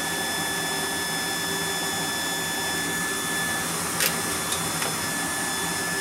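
Burners of two twinned 1985 Carrier 58GP natural-gas furnaces firing with the cabinet covers off: a steady rush of burning gas, before the blowers start. A single sharp click about four seconds in.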